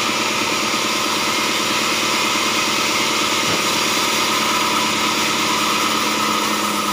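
Band sawmill running steadily, its blade cutting through a thick block of hard acacia wood.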